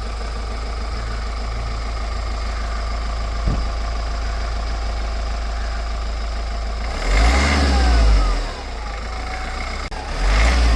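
Mahindra XUV300's 1.5-litre four-cylinder turbodiesel idling steadily, then revved about seven seconds in and again near the end. A turbo whistle falls away after the first rev.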